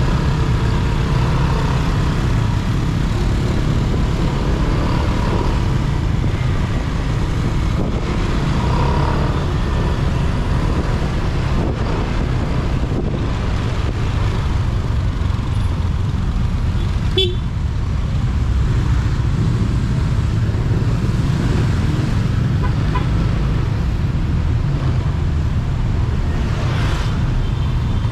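Steady low noise of a motorcycle ride through dense, slow city traffic, the bike and the surrounding cars and motorbikes blended together. A single sharp click comes about seventeen seconds in.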